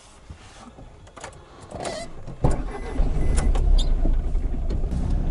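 Car cabin: a few small clicks and a sharp knock, then about three seconds in the engine and road rumble grow louder and steady as the car pulls away.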